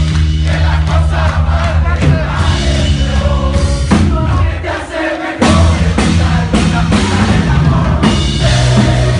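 Live rock band playing loudly, with drums, bass and singing, and a crowd heard over it. About halfway the bass drops out for roughly a second, then the full band comes back in.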